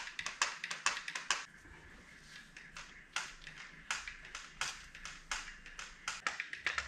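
Hand lever grease gun being pumped on a mower's front caster-wheel grease fitting: an irregular run of sharp clicks, a few a second, from the working handle. The gun is running out of grease.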